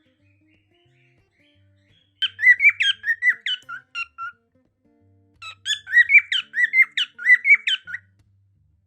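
A cockatiel calling in two quick runs of repeated high notes, each run about two seconds long, with a short pause between. Faint guitar music plays underneath.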